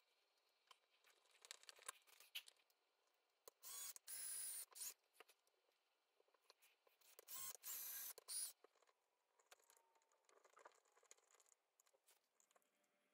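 Cordless drill-driver motor whining in two short runs a few seconds apart, driving screws into the guitar body, with faint handling clicks between them.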